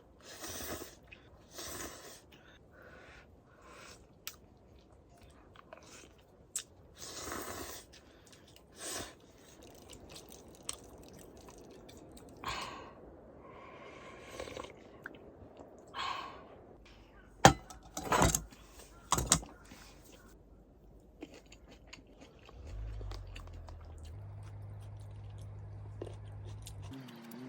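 A string of short rustles and scrapes with a few sharp clicks, the loudest clicks a little past halfway, typical of hands handling gear or food. Near the end a low steady hum sets in for a few seconds.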